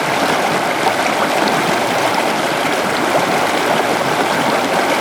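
Waterfall: water pouring and splashing steadily, with small gurgles and splashes flecking the even rush.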